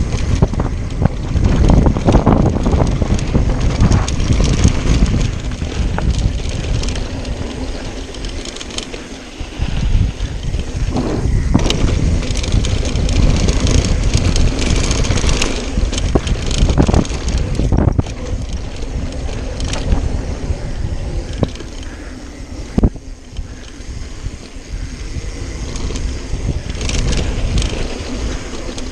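Mountain bike descending a dirt trail: tyres rolling over dirt and rocks and the bike rattling over bumps, with wind rushing across the microphone. Sharp knocks sound now and then, one loud one about 23 seconds in.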